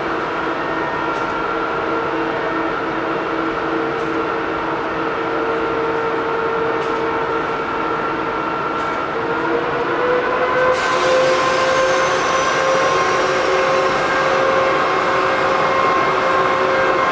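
EP2K electric locomotive pulling a train away: a steady whine of several tones over rumbling noise. About ten seconds in the whine rises slightly in pitch and a hiss joins it.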